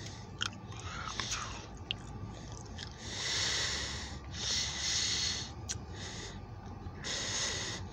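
A person breathing close to the microphone: three hissy breaths of about a second each, with a few small clicks, over a low steady hum.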